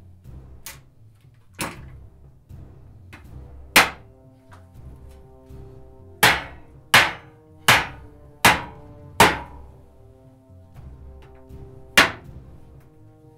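Nine sharp, hard strikes in a knife torture test, with a quick run of five about three-quarters of a second apart in the middle and a last one near the end. Background music plays underneath.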